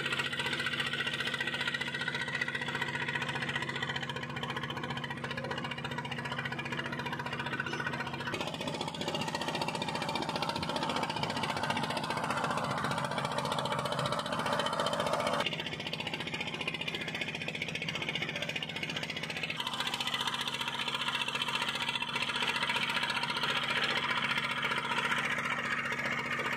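Engine of a motorized wooden sampan running steadily as the boat crosses the river, its tone changing abruptly a few times.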